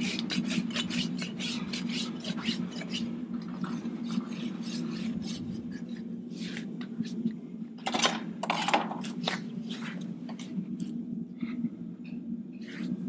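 Farrier's rasp scraping across a horse's hoof in quick, even strokes, about four a second, for the first three seconds, then slower, scattered strokes with a louder burst about eight seconds in. A steady low hum runs underneath.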